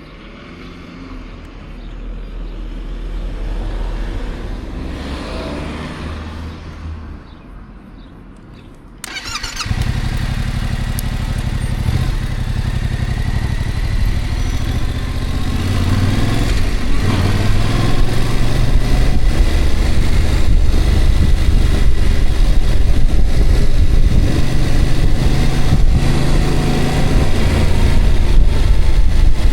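A vehicle's engine and road noise while driving: a low, quieter rumble that jumps suddenly much louder about nine seconds in, then runs steadily and slowly gets louder.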